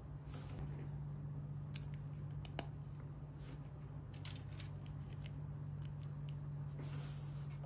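LEGO plastic pieces being handled and pressed together, with two sharp clicks a little under two seconds in and again at about two and a half seconds, and soft rustling of gloves on the pieces. A steady low hum runs underneath.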